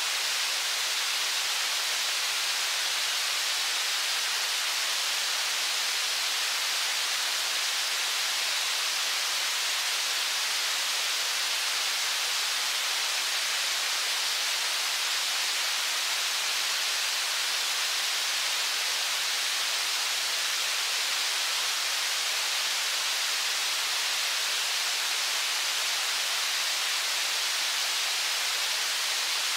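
Steady, even rush of river whitewater at a falls, a continuous hiss with no breaks or changes.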